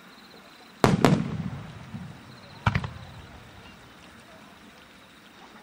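Aerial firework shells bursting: two booms in quick succession about a second in and a third near three seconds, each followed by a rumbling tail that fades.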